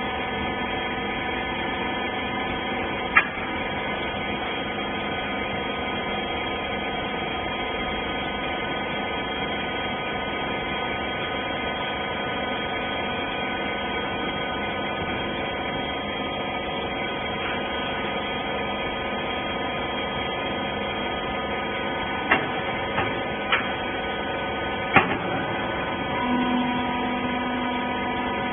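Hydraulic rag compression baler running with a steady mechanical hum, with a sharp clank about three seconds in and several more near the end. A lower steady tone joins the hum shortly before the end.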